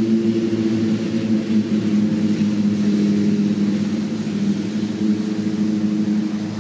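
A steady low motor hum of several fixed pitches, running without a break.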